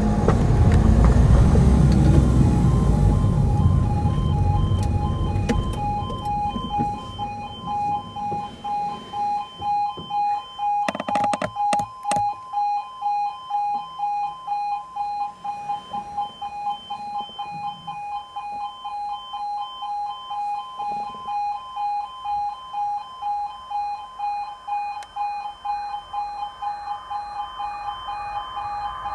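Car engine and road noise fading as the car slows to a stop over the first few seconds, under a level crossing's loud warning alarm, a pulsing tone beating a little faster than once a second. A few sharp knocks around eleven seconds in.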